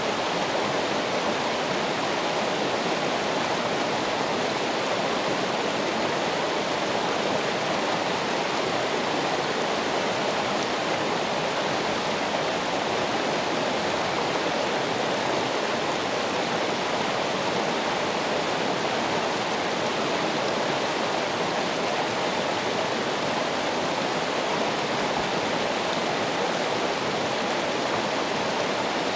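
Running water, a steady, even rush like a stream or small waterfall, with no changes.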